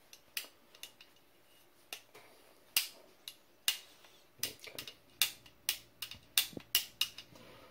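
AR-15 trigger and hammer being worked back and forth by hand, giving a string of sharp metallic clicks. The clicks are sparse at first and come closer together in the second half, about two to three a second.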